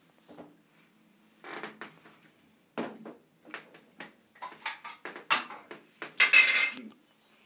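Clattering and knocking of objects being handled and moved about: a string of separate sharp knocks and short rustles, with a longer, louder rustle about six seconds in.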